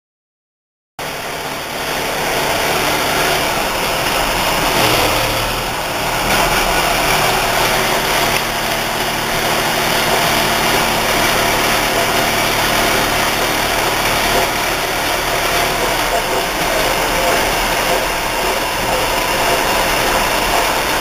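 Metal-working machinery in an engineering workshop running steadily, a lathe among it: a loud, constant mechanical din with a few steady hums. It cuts in suddenly about a second in.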